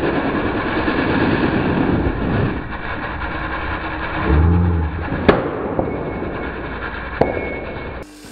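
Polishing motor with a buffing wheel running, a loud steady rushing noise as the aluminium piece is worked on the wheel, with two sharp knocks about five and seven seconds in.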